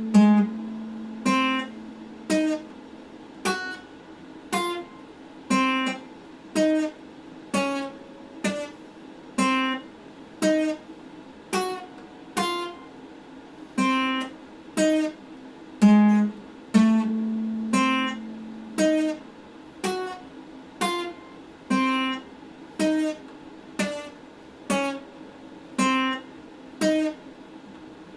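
Epiphone acoustic guitar played with slow, even chord strokes, about one a second, each chord ringing briefly before the next.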